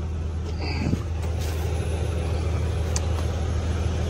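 Peterbilt sleeper truck's diesel engine idling with a steady low hum, heard from inside the cab, with the air-conditioning blower running on full blast. The engine is being left running to do a regen.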